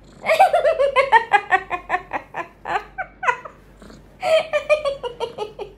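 A person laughing in quick giggling bursts, two bouts of rapid "ha-ha" pulses, each starting higher and sinking in pitch, the second starting about four seconds in.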